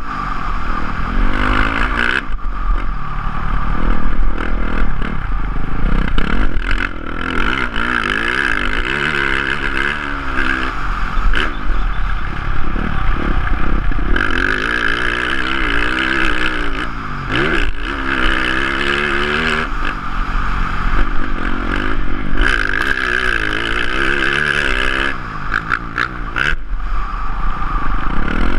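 Dirt bike engine revving up and down over and over as the throttle is opened and closed around the motocross track, heard close from a helmet-mounted camera, with scattered clattering knocks.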